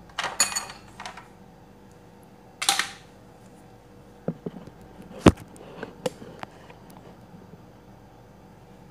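Handling noises: a few short rustling scrapes and scattered clicks and knocks. The loudest is a sharp knock about five seconds in.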